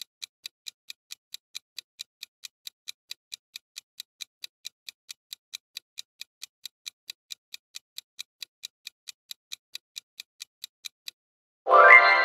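Countdown-timer sound effect: high, crisp clock-like ticks at about four a second. Near the end the ticking stops and a loud chime with several tones rings out and fades away, the answer-reveal sound.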